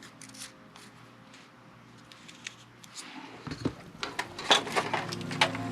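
Small sharp clicks and taps from hand work on a Walkman and small tools, sparse at first and busier in the second half. Background music comes in near the end.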